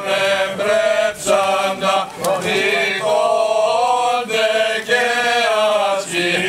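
Greek Orthodox Byzantine chant sung by voices, long held notes that slide between pitches, broken by short pauses about every second.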